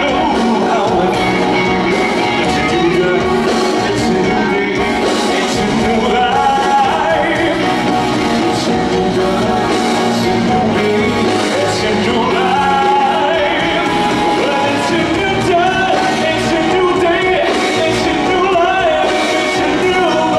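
Live performance of a song: a male singer singing over band accompaniment, loud and continuous.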